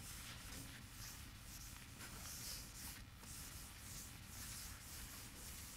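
Chalk scratching on a blackboard in a run of short strokes, faint, as the lecturer writes.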